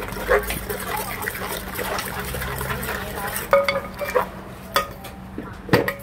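Wooden pestle and metal ladle mixing a liquid chili dressing in a large mortar: a wet sloshing, scraping stir, then from about halfway several sharp ringing clinks of the ladle against the mortar and a heavier knock near the end.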